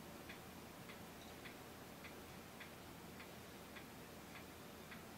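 Near silence with a faint, regular ticking, a little under two ticks a second.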